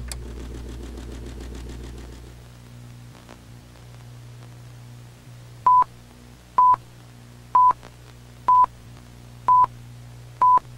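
A steady low electronic drone. About six seconds in, short high electronic beeps begin, all at one pitch and evenly spaced about a second apart, six in all, clearly louder than the drone.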